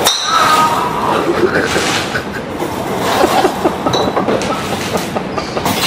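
A golf driver strikes a ball with a sharp crack right at the start, and a similar crack comes near the end. Between them are the steady noise and voices of the range.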